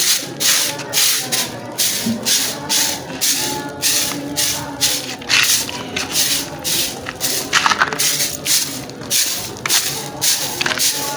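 A broom sweeping the floor in quick, repeated swishing strokes, about two a second.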